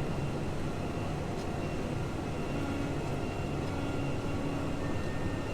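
Steady drone of a Case IH tractor working under load as it tows two Massey Ferguson 1844S square balers in the field, with a few faint steady whines over it.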